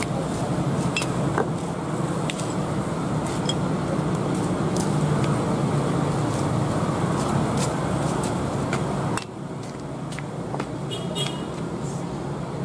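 Steady engine rumble with scattered light clicks, dropping suddenly in level about nine seconds in.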